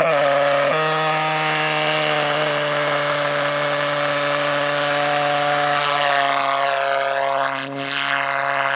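Model pulse-jet engine running at full power with a loud, steady buzzing drone, its pitch stepping once just under a second in. From about six seconds in, the upper part of the sound sweeps and swirls as the model flies off.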